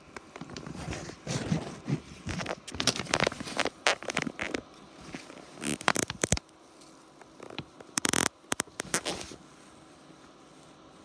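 Irregular rustling, scratching and crackling of a hand petting a cat, rubbing its fur and the fabric beneath, in uneven bursts with sharp clicks; it stops about nine seconds in.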